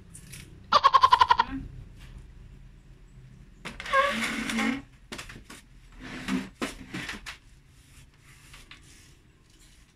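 A loud, quavering animal call about a second in, pitched and pulsing rapidly, followed by a second, shorter loud sound a few seconds later.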